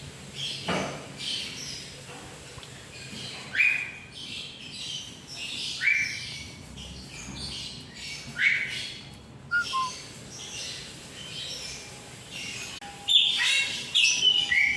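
Birds chirping throughout, with a louder sharply falling call repeating every two to three seconds and coming several times in quick succession near the end.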